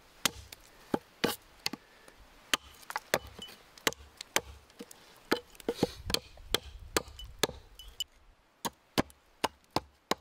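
Hatchet chopping a thin stick against a wooden plank: a run of sharp, irregular wooden knocks, about two a second, briefly sparser and quieter about eight seconds in.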